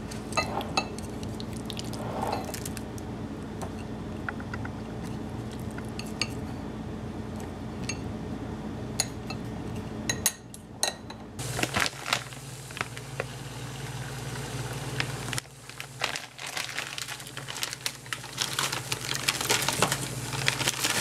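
Wooden chopsticks clinking and scraping against a glass cup and a ceramic bowl as food is moved between them, in many light clicks. About halfway through, this gives way to kitchen clatter around a saucepan on an electric stove, with the clinks growing busier near the end.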